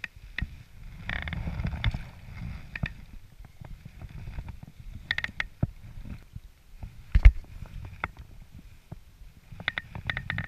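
Handling noise as a small perch is unhooked and let go from a float tube and the spinning rod is picked up again: a low rumble throughout, with scattered clicks and rustles and one sharp knock about seven seconds in.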